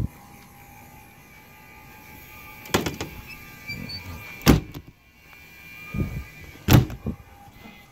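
A few separate sharp knocks and thumps, the loudest about halfway through and near the end: the motorhome's entry door being handled and pushed shut.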